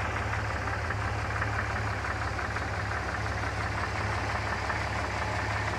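A vehicle engine idling steadily, with a rapid, even pulsing running through it: the weird noise the owner set out to record.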